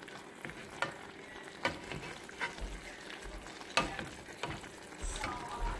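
A pot of paksiw na bangus (milkfish stewed in vinegar) simmering and sizzling in an uncovered saucepan, with irregular sharp pops and crackles about once a second.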